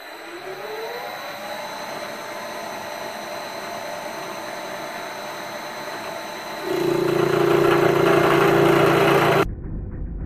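Milling machine spindle spinning up with a rising whine, then running steadily. About seven seconds in it gets much louder with a strong low hum, fitting the cutter going into the work. Near the end it drops abruptly to a duller, muffled machine hum.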